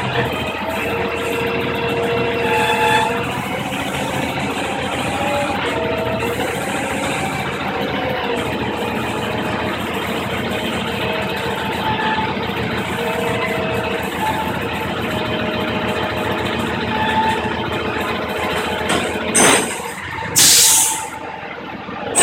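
A steady vehicle-like drone with some wavering tones in it, and two short, loud hisses near the end.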